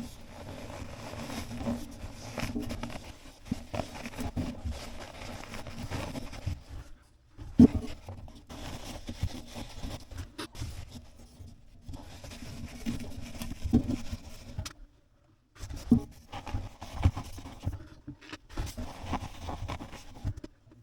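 High-temperature ceramic insulation being stuffed by hand into the gap between an old chimney flue and a new liner: irregular scraping and rustling with a few sharp knocks against the metal.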